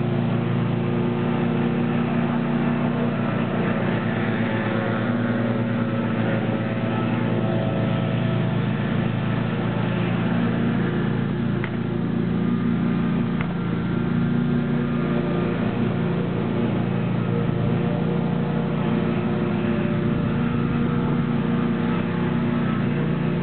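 Small gas engines of lawn-care equipment, leaf blowers and lawnmowers, running steadily. More than one engine is heard, each holding an even pitch.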